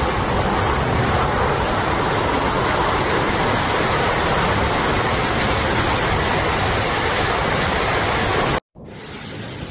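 Loud, steady roar of a violent storm: strong wind and heavy driving precipitation, with wind buffeting the microphone. It cuts off suddenly about a second before the end, giving way to quieter, steady rain.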